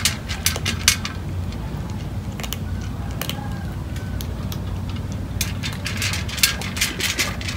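Cats crunching dry kibble and picking it off a metal tray: crisp clicks and crunches in clusters in the first second and again near the end, over a steady low hum.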